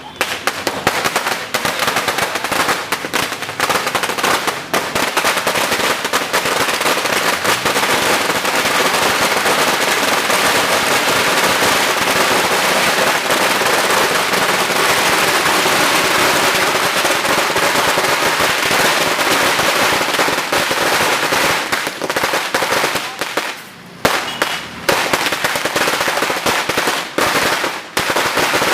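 A sinturon ni Hudas, a long string of small firecrackers, going off in a rapid, continuous chain of sharp cracks. The chain breaks off briefly about 24 seconds in, then resumes in shorter bursts.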